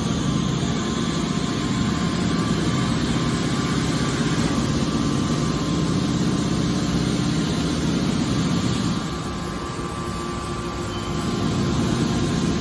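Hydraulic scrap baler running: a steady mechanical drone from its motor and pump. It eases off for a couple of seconds about nine seconds in, then picks up again.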